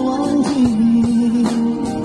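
Live pop song: a man singing, holding one long note from about half a second in, over a strummed acoustic guitar and a drum kit.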